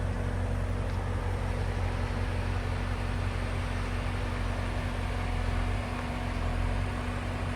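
BMW M550i's twin-turbo V8 running steadily at low revs, a constant low hum as the car creeps under remote-control parking.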